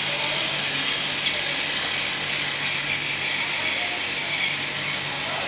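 Battery-powered toy Thomas trains whirring steadily as their small motors drive them along plastic track.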